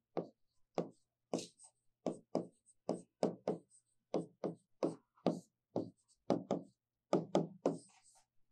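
Chalk writing on a blackboard: a quick run of short taps and strokes, about two or three a second, as a line of symbols goes up.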